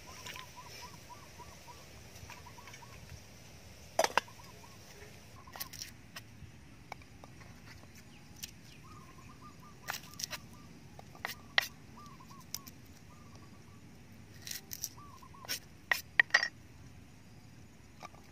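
Kitchen knife chopping garlic on a round wooden chopping block: scattered sharp knocks, several close together near the end. Behind it, a bird calls in short runs of quick repeated notes.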